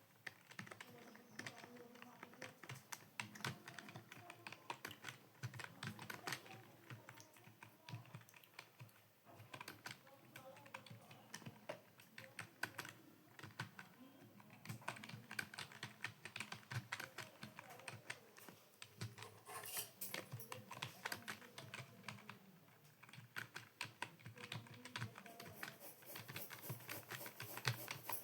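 Fast typing on a computer keyboard: a continuous, irregular stream of key clicks, several a second.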